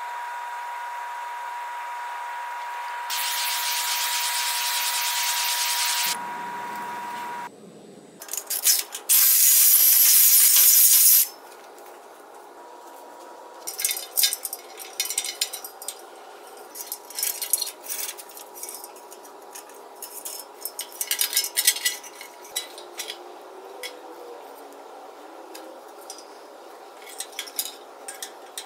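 A steady hiss that gets louder about three seconds in and stops about six seconds in. Then comes a louder hiss for about two seconds, around ten seconds in. After that, scattered light clicks and rattles as small LED light fittings and wires are handled against a steel tractor grill shell.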